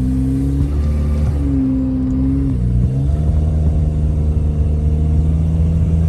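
Car engine and road noise heard from inside the cabin while driving. The engine pitch rises and falls over the first three seconds, then holds steady.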